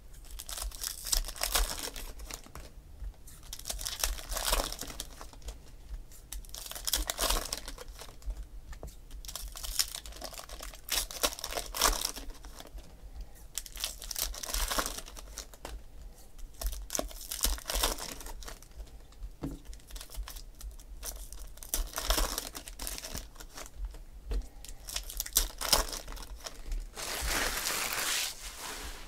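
Foil trading-card pack wrappers crinkling and tearing as they are opened by hand, in repeated bursts every second or two, with a longer stretch of crinkling near the end.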